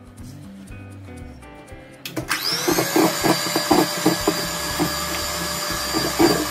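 Electric hand mixer switched on about two seconds in: its motor whines up in pitch and then runs steadily as the beaters whip eggs and powdered sugar in a stainless steel bowl, with repeated knocks of the beaters against the bowl. Faint background music before it starts.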